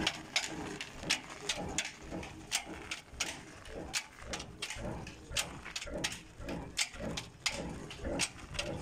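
Old slow-speed stationary 'desi' diesel engine running at about 275 RPM, with a sharp beat about twice a second over a low throb.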